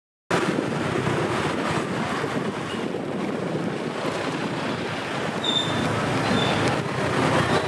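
Road traffic noise on a busy city street, with wind rumbling on the microphone as the camera moves along. A few short high tones sound around the middle.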